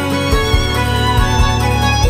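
Instrumental background music: held, sustained notes over a regular low beat.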